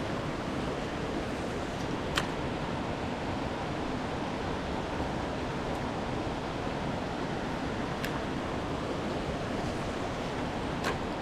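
Steady rushing of river water, with wind on the microphone. Three faint sharp clicks come through it, spread out over the stretch.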